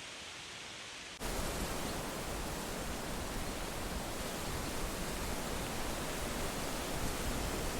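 Steady rush of wind with rustling leaves, an even noise that jumps abruptly louder and brighter about a second in, then holds steady.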